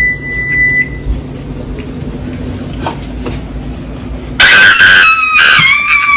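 A low steady hum of a running appliance. About four seconds in, a loud, high-pitched scream cuts in and slides slowly down in pitch.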